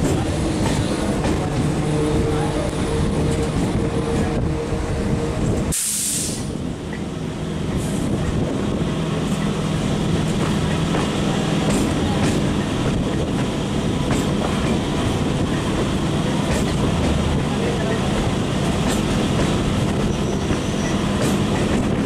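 Eastern Railway EMU commuter train running along the track, heard from its open doorway: a steady rumble and clatter of wheels on the rails. A faint steady tone sounds over it in the first few seconds, and about six seconds in there is a brief break with a short hiss.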